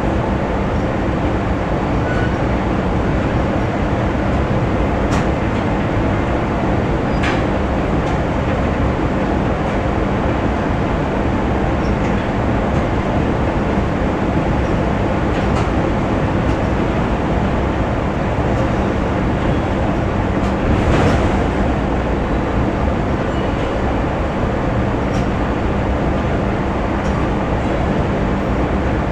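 Factory machinery running: a dense, steady mechanical din over a constant low hum, with a few sharp metallic knocks, the loudest about two-thirds of the way through.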